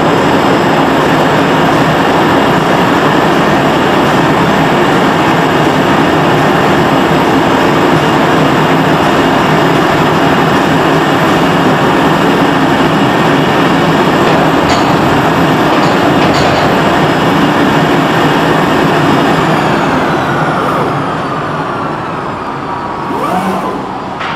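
CNC oscillating knife cutting machine with punch tool running: a loud, steady whirring machine noise with several steady whining tones. From about 20 seconds in the tones glide down and the noise fades as the machine winds down.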